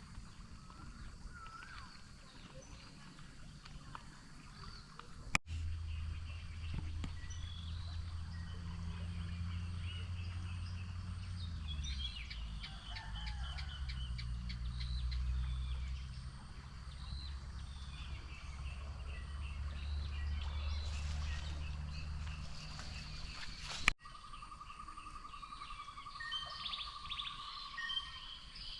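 Forest birds chirping over a low steady rumble in the middle stretch, with a rapid, even trill near the end. Two sharp clicks mark abrupt cuts in the recording.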